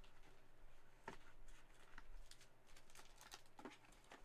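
Faint clicks and rustles of trading cards being handled and shuffled, scattered irregularly.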